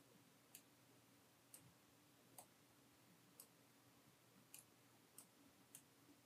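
Faint computer mouse clicks: about eight single clicks at uneven intervals, over a faint steady low hum.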